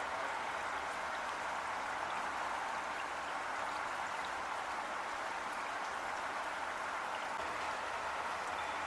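Heavy rain falling, a steady, even hiss of drops with no change in strength.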